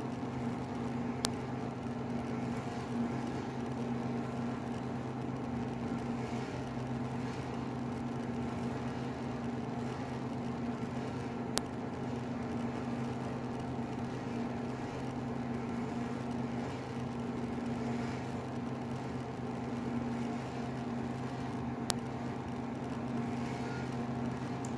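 Steady mechanical hum, as from a running motor or appliance, with three short sharp clicks about ten seconds apart.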